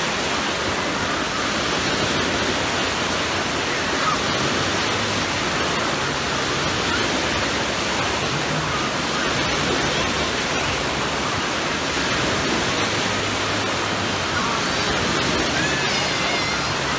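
Steady rushing and churning of water as machine-made waves break across a wave pool, with faint shouts of swimmers now and then.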